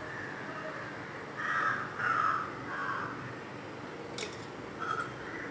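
A crow cawing: three harsh caws in a row about a second and a half in, then one short caw near the end. A single sharp click, a metal spoon against a steel cup, comes about four seconds in.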